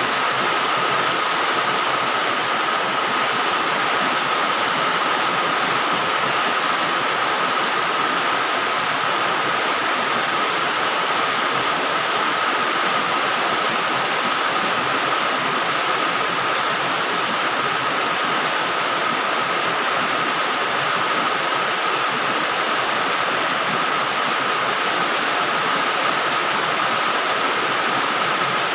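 Rain falling steadily on a galvalume sheet-metal roof, an even, dense hiss of drops on the metal that holds constant throughout.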